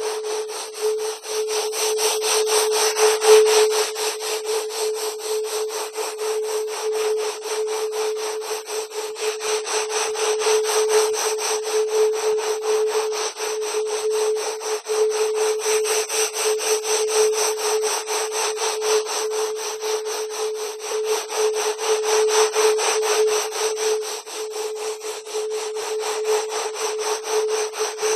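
Synthetic 'wave genetics' sound recording: one steady mid-pitched tone under a dense, rapid, rasping crackle that goes on without a break.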